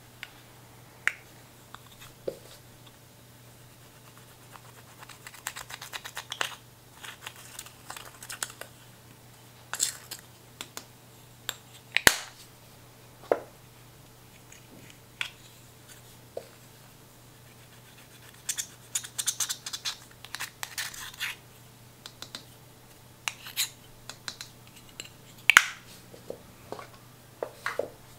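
Small plastic eyeshadow compacts clicking and tapping, with bursts of rapid scratching as the pressed eyeshadow powder is scraped and crumbled out of the pans.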